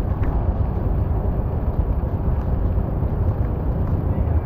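A car driving in the rain: a steady low rumble of engine and tyres on a wet road, with faint light ticks scattered throughout.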